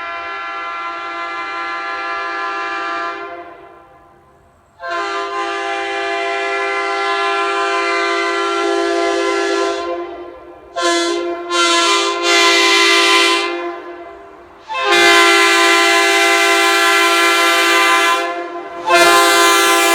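Leslie RS3K three-chime locomotive air horn, a Tampa-built horn with bells 31, 37 and 48 fitted with debris cones, sounding its chord in a series of blasts. One long blast fades out about three seconds in, another runs about five seconds, then come three short toots, a longer blast of about three seconds, and a new blast begins near the end.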